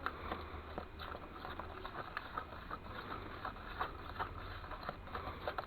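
Irregular scraping and knocking of a tool stirring a wet mix of plaster of Paris, sand and cement in a container, over a steady low hum.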